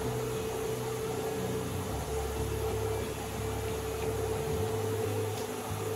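Hobby spray booth's extractor fan running with a steady hum, with the hiss of an airbrush spraying paint.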